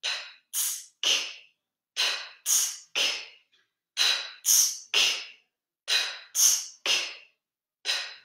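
A person doing a diaphragm-strengthening breath exercise: short, forceful hissed puffs of breath in quick groups of three, a new group about every two seconds.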